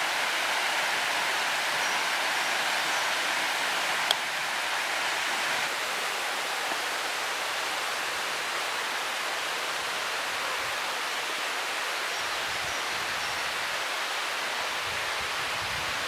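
Small stream rushing, a steady even hiss of running water, with one small click about four seconds in.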